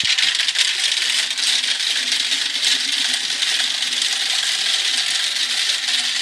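Many marbles rattling and clattering down a tall plastic marble run's tracks and chutes, a dense, continuous run of small clicks.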